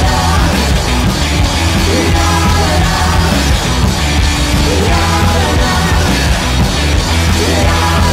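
Background rock music with a sung vocal line.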